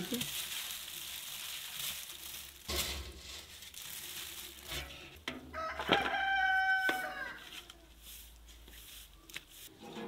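A rooster crows once, about six seconds in: one long call lasting over a second. A few light knocks and a soft rustle sound around it.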